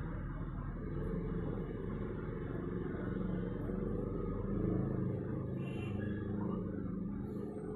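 Road traffic at night: passing cars with their engines running, a steady low sound.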